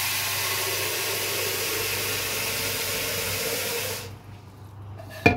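Kitchen tap running into a plastic jug, filling it, shut off about four seconds in. A single sharp knock just before the end.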